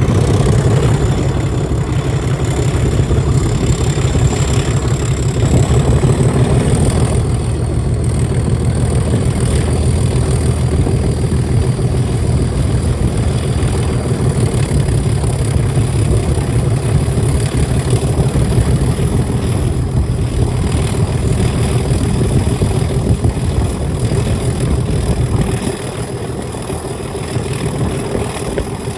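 Class 37 diesel locomotive's English Electric V12 engine working under power, heard close up from the coach behind it, a steady low growl with a high whistle rising in pitch a few seconds in. Near the end the engine note drops and goes quieter as the power eases.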